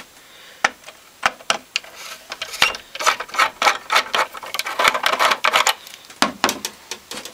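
A screwdriver undoing the screws of a Landis+Gyr E350 smart meter's plastic terminal cover: irregular sharp clicks and ticks, with a denser run of scraping clicks in the middle.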